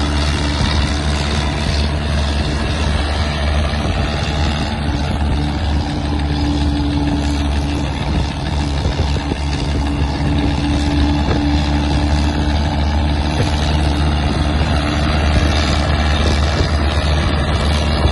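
Diesel tractor engine running steadily under heavy load, pulling an overloaded sugarcane trolley, with a low drone that holds one speed and no clear revving.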